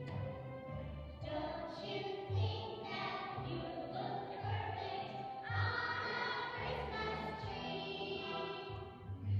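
A group of young children singing a Christmas carol together.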